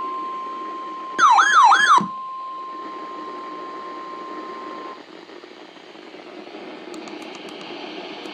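NOAA Weather Radio 1050 Hz warning alarm tone, a steady high tone, received on a weather radio during the required weekly test. About a second in, a weather radio's built-in alert siren sounds loudly for under a second, with about three fast up-and-down sweeps. The tone stops about five seconds in, leaving radio hiss with a few faint clicks near the end.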